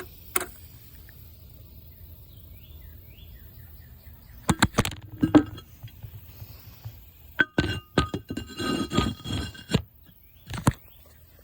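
Scattered sharp clinks and knocks of hard objects being handled, some with a brief ringing tone: a single click just after the start, a cluster about halfway, and a longer busy run near the end.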